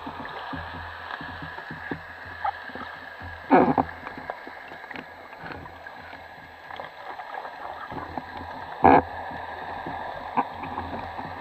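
Muffled underwater water noise through a submerged camera housing: a steady low rushing with a faint constant whine, broken twice by short, louder gurgling rushes of water and a few faint clicks.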